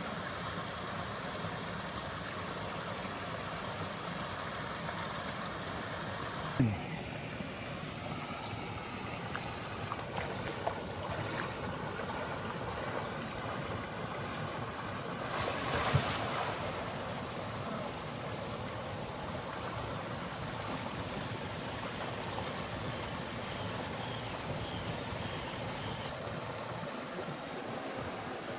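Flowing creek water rushing steadily, with a brief louder burst of noise about halfway through.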